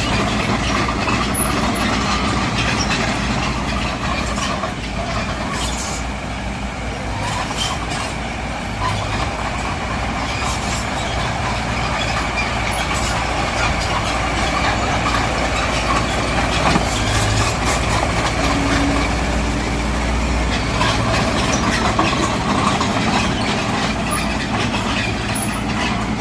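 Diesel engine of a Mitsubishi BD2G crawler bulldozer running steadily under work, with scattered metallic clanks and clicks that fit its steel tracks.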